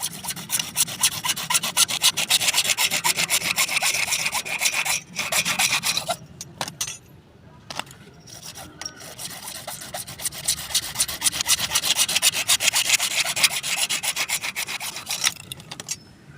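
Hand sawing through pipe, likely with a hacksaw: quick, even rasping strokes in two long runs, broken by a pause of about two seconds near the middle.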